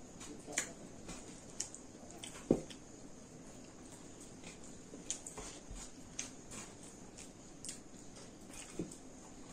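Close-miked eating sounds from a person eating rice and dal by hand: scattered wet mouth smacks and clicks while chewing, with fingers squishing rice on a metal plate. The loudest smack comes about two and a half seconds in.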